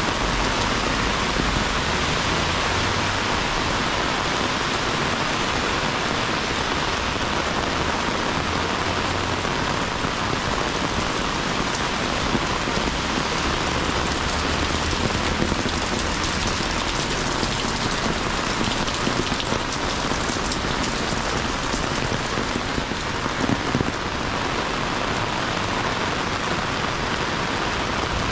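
Heavy rain pouring steadily onto a city street: a dense, even hiss. A low rumble lies under it for about the first ten seconds, and there is a brief louder patch near the end.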